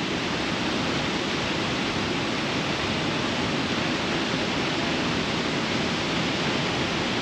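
Steady rushing of water pouring from a dam's spillway chute into the river below.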